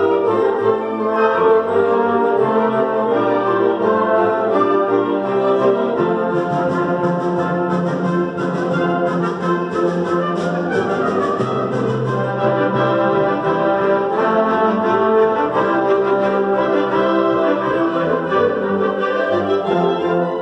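Concert wind band playing a chorale prelude: held chords from brass, saxophones and woodwinds, moving from one chord to the next every second or so.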